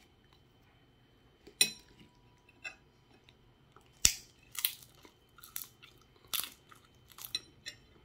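Crunching and chewing of Ogamja potato-stick snacks under melted microwaved cheese: a handful of short, sharp, irregular crunches, the sharpest about four seconds in.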